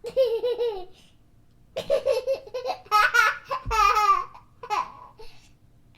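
A child laughing in fits: a quick run of ha-ha-ha pulses, a short pause, then a longer bout that rises into higher-pitched squeals midway and trails off near the end.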